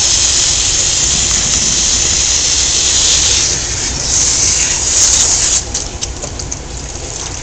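Water spraying from a hand-held sprayer onto a wet cat's coat to rinse out shampoo: a steady hiss that turns quieter about five and a half seconds in.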